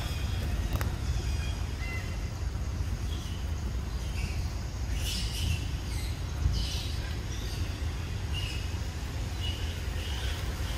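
Short high bird chirps scattered over a steady low rumble, the chirps clustering around the middle.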